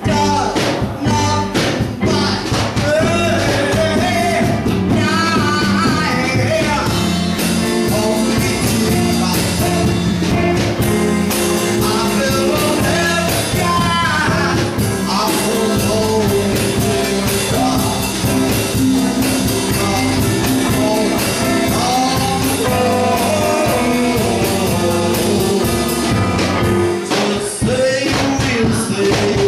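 Live band playing a song, with a singer.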